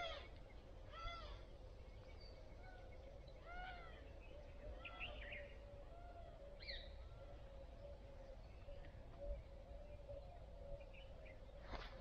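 Faint, short animal calls, each rising and falling in pitch, repeated about every second or so, over a faint steady hum.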